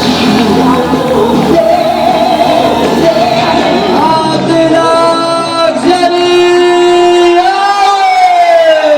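Loud walkout music with singing played over a hall's PA system, with long held notes, one sliding slowly down in pitch near the end.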